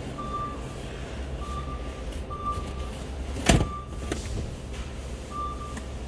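Five short electronic beeps, all at the same pitch and spaced irregularly about a second apart, over a steady low hum of store machinery, with one sharp knock about three and a half seconds in.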